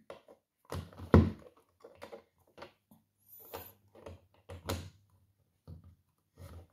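Scattered knocks and taps as a clear plastic coin capsule, a display stand and silver pieces are handled and set down on a wooden tabletop, the loudest knock about a second in.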